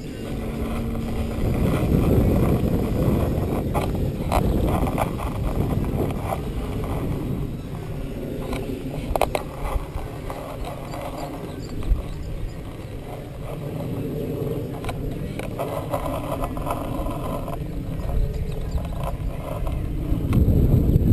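Wind rumbling on the camera's microphone in an open field, with a few scattered knocks and a faint steady hum that stops about a second in.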